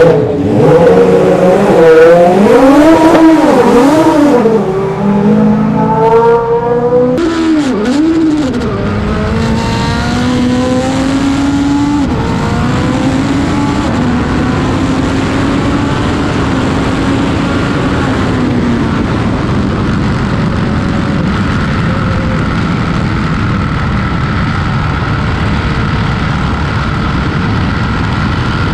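Turbocharged Toyota 4A-GE four-cylinder in a Formula Atlantic race car, revving hard and rising and falling in pitch several times. From about eight seconds in it gives way to a steadier, lower noise with a tone that slowly falls away.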